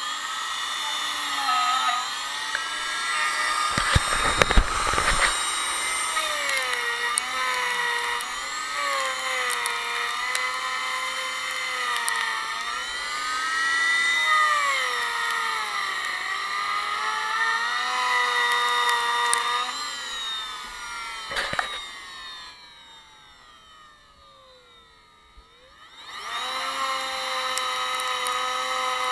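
Plunge router with a 25.4 mm core box bit milling a groove in aerated concrete block. Its high motor whine dips in pitch and recovers as the cut loads it, with gritty crackles of the bit biting the block about four seconds in and again later. About three-quarters through it is switched off and winds down with a falling whine, then starts up again a few seconds later.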